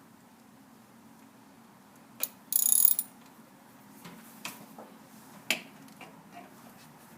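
Ratchet wrench on a spark-plug socket clicking in one short rapid burst about two and a half seconds in, then a few scattered tool clicks and knocks, as a spark plug is loosened from the engine.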